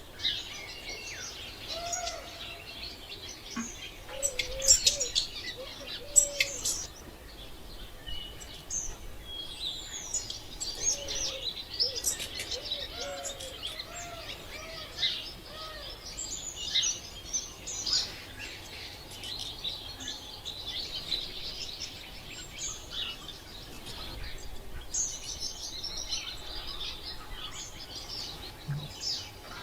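Several birds calling at once: a dense mix of high chirps, trills and whistles, with lower, short arched call notes now and then beneath them.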